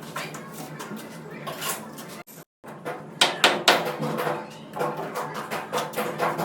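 Repeated metallic clinking and clattering, like hard objects knocking together. The sound cuts out completely for a moment about two and a half seconds in.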